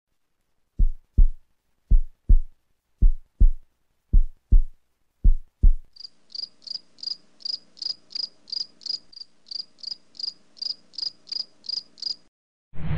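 A heartbeat-like run of five deep double thumps, about a second apart. It is followed by cricket chirping, about three chirps a second, over a faint low hum, which cuts off near the end.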